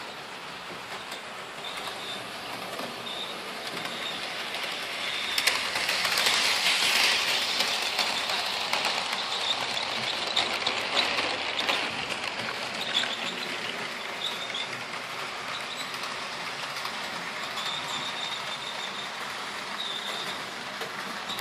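Hornby OO-scale model locomotive, a Peppercorn A1 Pacific, running on model railway track with a train of coaches: a steady whirring, rattling rumble of motor and wheels that grows louder about five seconds in as it passes close, then eases. Short high squeaks come and go throughout, from two of the trailing coaches rather than the engine.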